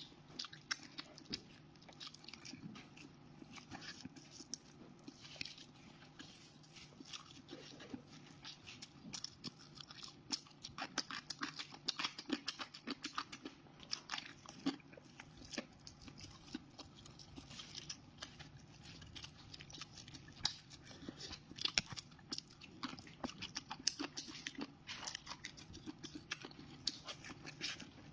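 Close-miked eating: a person biting and chewing food, with many irregular crunchy clicks and mouth sounds.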